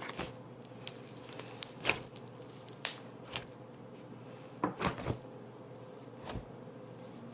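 Stiff butter slime being kneaded and squeezed by hand, giving a scattered series of short sticky clicks and squelches over a low steady hum. The slime is still stiff and needs more lotion.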